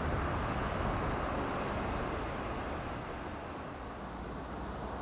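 Distant city traffic: a steady hum of road noise that eases slightly after about three seconds, with a few faint high chirps.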